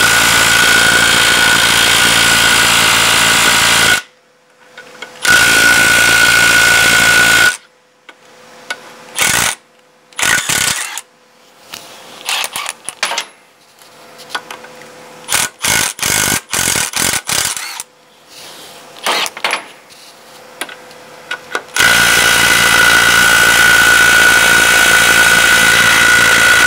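Milwaukee M12 FUEL CIW12 half-inch cordless impact wrench hammering on a truck wheel nut, in long steady bursts of several seconds with a string of short trigger blips in between. The nut is too tight for it and does not crack loose.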